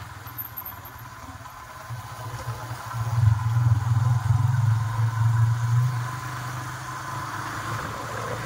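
Motorcycle engine running while riding along a road, with wind and road noise. The engine note grows louder about three seconds in and eases off again near the six-second mark.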